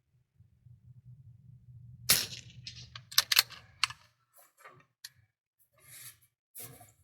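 .22 rimfire bolt-action rifle: a sharp crack about two seconds in, then several quick metallic clicks and clacks as the bolt is worked, with a few fainter clicks after.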